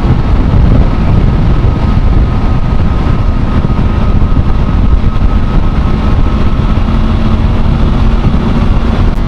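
Loud, steady wind rush on the microphone of a motorcycle riding at highway speed, with a steady engine hum underneath.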